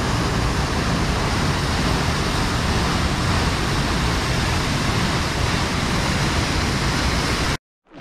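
Peričnik Waterfall pouring into its plunge pool: a loud, steady rushing roar that cuts off abruptly near the end.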